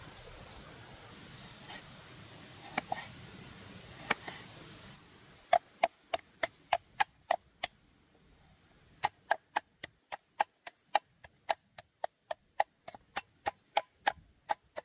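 Knife chopping on a wooden cutting board: two quick runs of sharp strokes at about four a second, the first starting about five seconds in and the second after a short pause. Before that there is only a faint steady background with a few light clicks.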